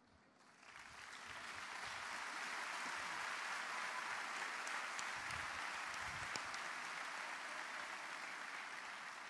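A large audience applauding. The clapping builds about a second in, holds steady, then thins out near the end.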